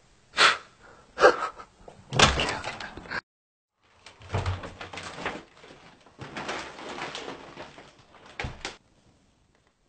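A front door being opened and shut, with several knocks and thuds, and plastic shopping bags rustling as they are carried in.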